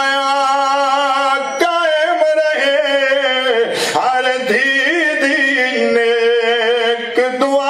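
A man's unaccompanied voice chanting a devotional recitation into a microphone, holding long, drawn-out notes in a few slow phrases with short breaks between them.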